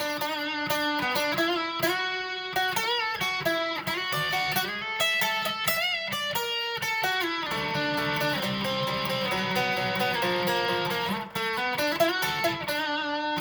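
Guitar solo in single-note pentatonic lines, with several bent notes, mixing in deliberately dissonant notes against the song's chords.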